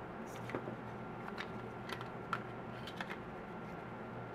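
Hard plastic phone cases being handled: a scattering of light clicks and taps as a cased HTC One is set down and a grey OtterBox case is picked up.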